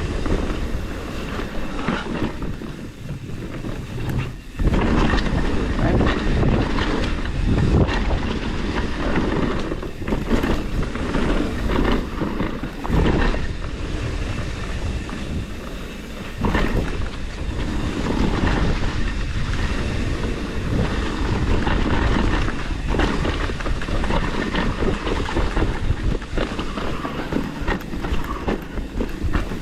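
Mountain bike running down a rough dirt trail: tyres rolling over dirt and rocks, with the chain and frame rattling and knocking over the bumps.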